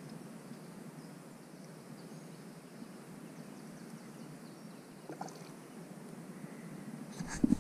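Faint steady outdoor background with a few small clicks from fishing tackle being handled at a spinning reel. Near the end come a couple of sharp knocks, then a louder low rumble.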